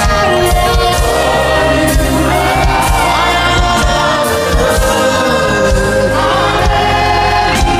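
Live gospel worship music: a choir sings sustained 'Hallelujah' lines over a keyboard-led band accompaniment.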